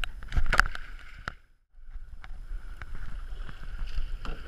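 Pool water splashing and sloshing against a waterproof action camera's housing at the water surface, with a loud splash about half a second in. The sound cuts out almost completely for a moment around one and a half seconds in, then the sloshing resumes.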